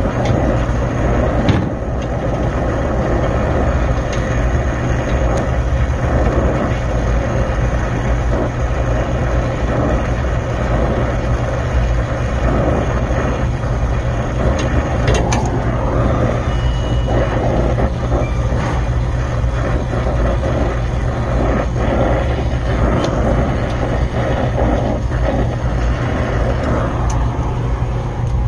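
Oxy-acetylene torch flame hissing steadily while brazing a copper line joint onto a Danfoss thermostatic expansion valve, over a low steady hum.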